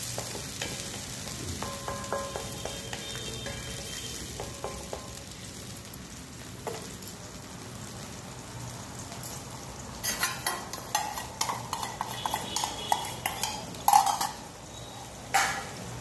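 Capsicum and gravy sizzling and simmering in a metal pan over a gas flame as it comes to the boil. From about ten seconds in, a metal spatula scrapes and clicks against the pan in a run of stirring strokes.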